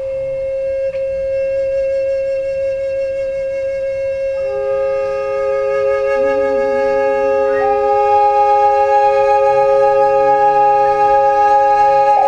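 Wooden flute playing slow, held notes: one long note sounds throughout, a lower note joins it about four seconds in and drones beneath it, and a higher note comes in over both near the middle.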